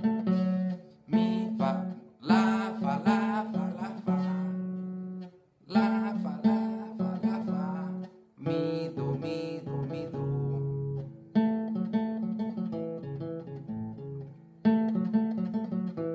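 Twelve-string acoustic guitar playing a fast sierreño-style ornamental run of picked single notes, in several phrases, each starting sharply and ringing out, with brief pauses between them.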